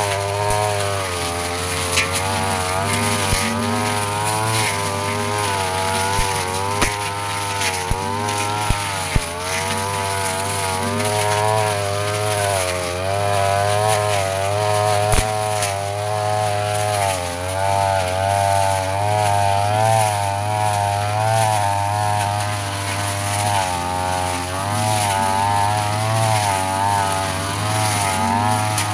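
Yasuka backpack brush cutter engine running fast while cutting grass and weeds, its pitch wavering up and down as the load changes, with a few sharp ticks.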